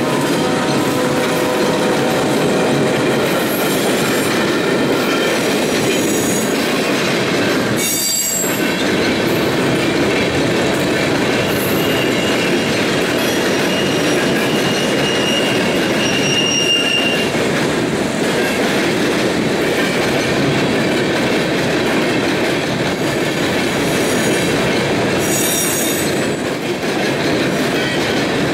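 A Norfolk Southern freight train passing close by. The trailing diesel locomotive's engine goes past at the start, then covered hoppers and boxcars roll by with a steady wheel-on-rail rumble and clatter. A few brief high-pitched wheel squeals cut through it.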